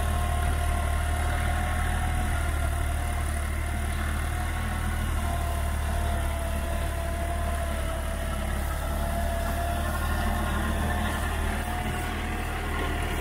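New Holland 3630 tractor's diesel engine running steadily under load while driving a Jagatjit super seeder through stubble, a low drone with a steady whine over it.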